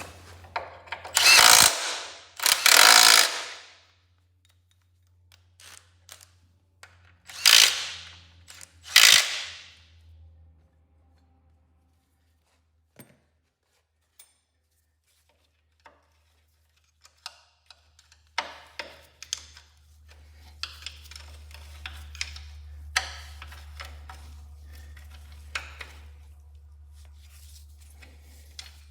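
Impact wrench run in four short bursts, two pairs a few seconds apart, tightening bolts, followed by scattered light metallic clicks and taps of hand tools.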